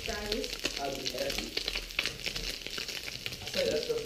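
Largemouth bass fillets pan-searing in butter in a stainless frying pan: a steady sizzle with fine crackling throughout.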